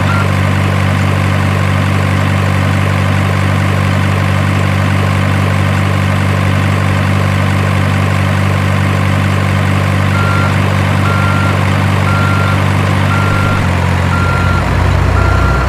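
Truck diesel engine sound idling steadily. From about ten seconds in, a reversing beeper beeps at a steady pace, and the engine note changes near the end.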